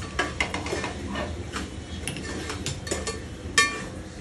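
Metal spoon stirring and scraping in a steel cooking pot as masala is fried, giving a run of clicks and knocks, with one louder clink about three and a half seconds in.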